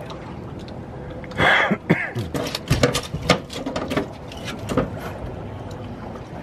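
A brief rush of noise, then a run of quick knocks and slaps for about two and a half seconds: a freshly landed blue catfish flopping on the boat's deck.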